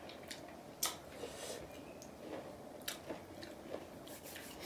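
Someone chewing and eating food, with scattered short, sharp clicks.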